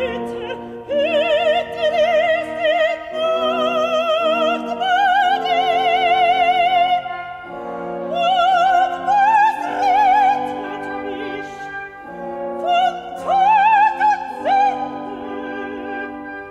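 Operatic soprano singing with wide vibrato over sustained chords from a symphony orchestra. Her phrases climb to held high notes a little after halfway, with brief breaths between them.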